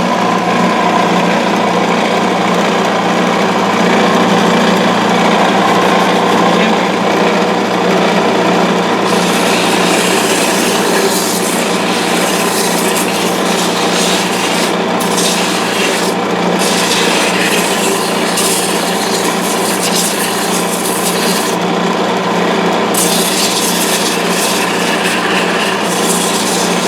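Wood lathe running steadily while the wooden finial spinning on it is worked by hand, with a continuous rubbing, scraping noise on top of the motor hum. The hiss of the work swells and fades several times as pressure on the wood changes.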